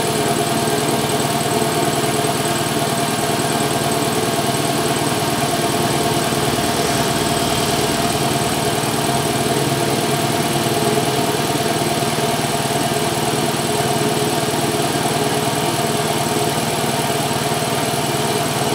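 Meiji 2 HP belt-driven piston air compressor running steadily, its electric motor driving the pump to fill the tank.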